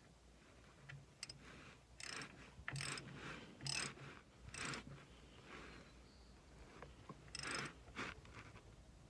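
Half-inch drive ratchet screwing the gear oil plug back into a Ford F550's rear differential: several short bursts of ratchet clicking, with pauses between strokes.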